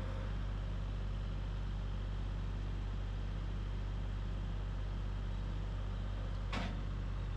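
Tractor engine idling with a steady low hum. About six and a half seconds in, a brief high sound glides quickly down in pitch.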